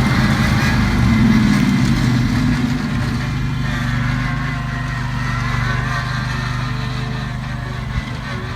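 Riding lawn mower engine running steadily, easing off slightly toward the end.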